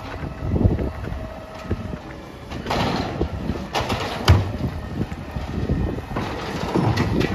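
CNG Peterbilt Amrep automated side-loader garbage truck running while its arm tips a cart into the hopper. Trash rattles down, with a sharp bang just after four seconds in as the cart empties.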